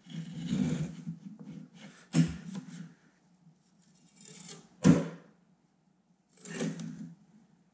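Masking tape being pulled off the roll and pressed down over a side mirror cap to hold a freshly glued carbon fiber cover in place: four short noisy bursts, the loudest a sharp knock just before five seconds in.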